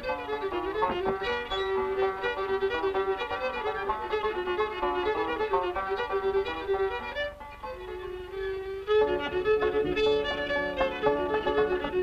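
Background music: a fiddle playing a tune, dipping briefly about seven seconds in before picking up again.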